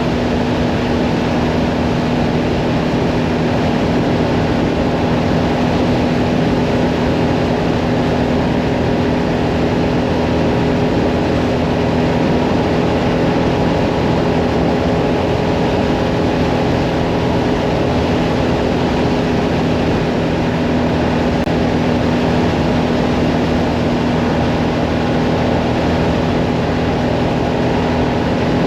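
Mirage 650 motorcycle engine running at a steady cruising speed, a constant drone with no change in pitch, over an even rush of wind and road noise.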